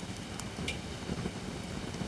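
Campfire of holly firewood burning: a steady low rumble of flames with a couple of sharp crackles and pops in the first second.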